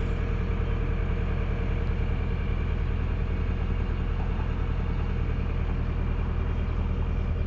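A fishing party boat's engine idling steadily, a low, even hum.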